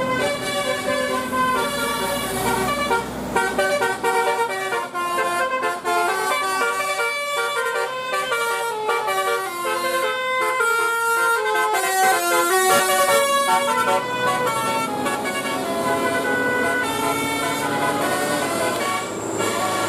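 Telolet Basuri musical bus horn playing a tune of quickly changing notes, one note after another.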